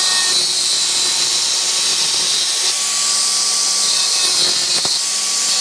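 Angle grinder with a cutting disc running and cutting through a plastic car under tray: a loud, steady, high hiss with a faint motor whine underneath, cutting off suddenly at the end.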